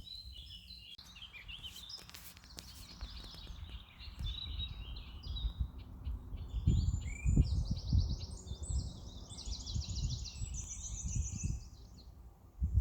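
Several songbirds singing, with overlapping high phrases and rapid repeated trills. Low thuds come about halfway through and are the loudest sounds.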